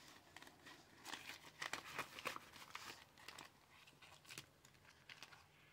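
Faint crinkling of paper banknotes being handled and counted by hand, mostly in the first half.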